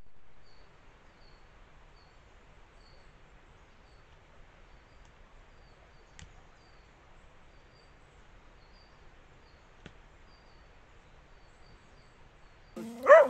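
Faint steady hiss of a wooded slope picked up by a trail camera's microphone, with faint high chirps about twice a second and two faint clicks. Near the end a short, loud animal cry breaks in.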